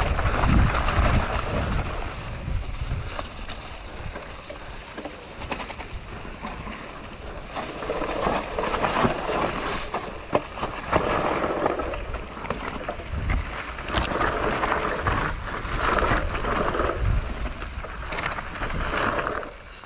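Mountain bike riding fast down a dirt trail covered in dry leaves: tyres rolling over dirt and leaves, the bike rattling and knocking over bumps, and a low wind rumble on the camera microphone. The sound fades out just before the end.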